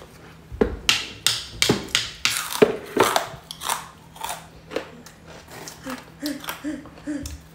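Close-up biting and crunching of crispy kerupuk crackers while eating: a quick run of sharp, loud crunches in the first few seconds, then softer chewing clicks.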